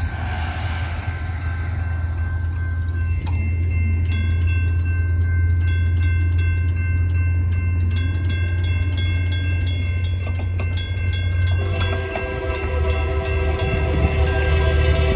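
Railroad crossing bells ringing: a steady electronic crossing bell together with a WCH mechanical crossing bell that starts striking about three seconds in and sounds pretty rough. About twelve seconds in, an approaching freight train's horn chord joins.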